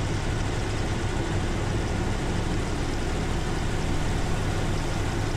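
Chevrolet 350 V8 (L-48, Quadrajet four-barrel) in a 1977 Corvette running steadily at a raised fast idle, about a minute into a cold start with the choke still engaged.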